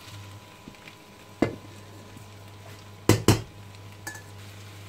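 Stainless-steel colander knocking against the frying pan and bowl as seafood is tipped back into the pan: one sharp knock, then two close together about two seconds later, with a light tick near the end. A low steady hum runs underneath.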